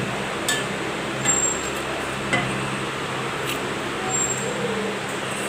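A kitchen knife slicing jackfruit bulbs over a steel mixer jar, with a few light clicks as the blade or pieces touch the jar. Under it runs a steady background hiss and hum.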